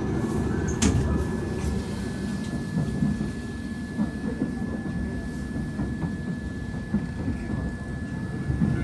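Passenger train running, heard from inside the carriage: a steady low rumble with a thin steady high whine over it and a sharp click about a second in.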